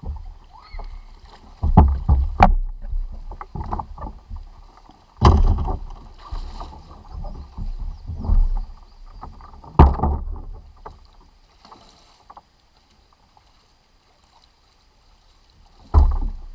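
Splashing of a person wading in shallow creek water beside a plastic sit-on-top fishing kayak, with irregular thumps and knocks on the kayak's hull as it is pushed and handled. The knocks come every second or two, then stop for a few seconds before one more loud thump near the end.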